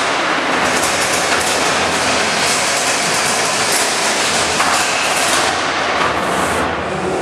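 Featherweight fighting robots driving and colliding in the arena: continuous motor noise with frequent metallic knocks and scrapes as they ram and shove each other.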